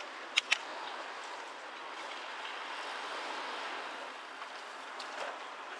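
Steady rolling noise of a bicycle ride on city streets, with two sharp clicks in quick succession about half a second in.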